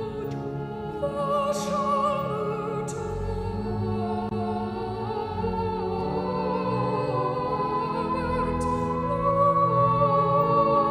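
Slow sacred vocal music: voices holding long notes over a sustained low accompaniment, getting a little louder near the end.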